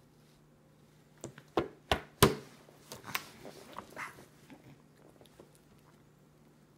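Toddler eating spaghetti with her hands in a high chair: a run of sharp, wet smacks and clicks, four loud ones in quick succession about a second in, then smaller ones that die away.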